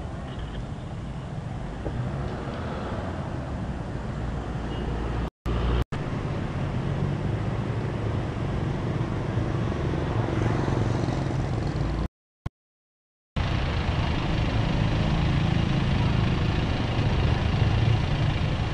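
Traffic noise with a steady low rumble. The sound drops out completely twice, briefly, at edit cuts. In the last part it is the engine and road noise of a moving open-sided passenger truck (songthaew), heard from its passenger bed.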